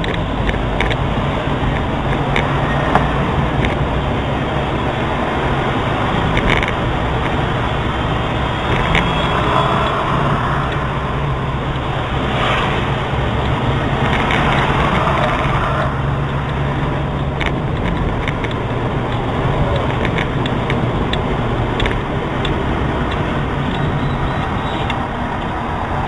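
A car driving in town traffic, heard from inside the car: steady engine drone and road noise, with a few brief clicks and rattles.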